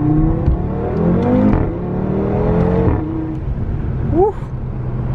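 Audi car engine heard from inside the cabin, pulling through the gears: its pitch climbs, drops at a gear change about a second and a half in, climbs again and drops near three seconds. A brief, sharp rising sound stands out about four seconds in.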